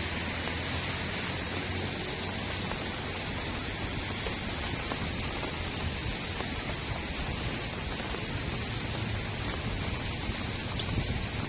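Steady rain falling on a street, an even hiss with a few faint drop ticks.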